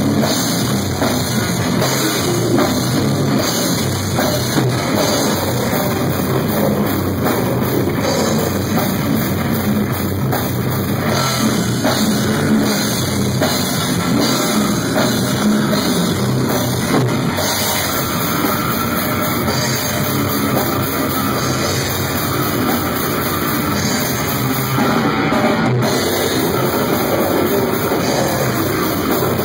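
Live heavy metal band playing: a drum kit close up, with distorted electric guitar, loud and unbroken.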